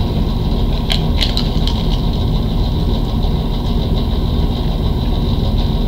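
A Pringles Wavy potato chip crunching as it is bitten and chewed: a few short sharp cracks about a second in. Under it, a steady low rumbling noise.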